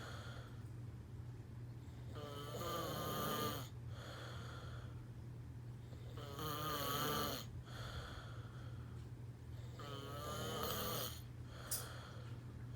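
A man snoring: three long, buzzing snores about four seconds apart, with quieter breathing between them, over a steady low hum.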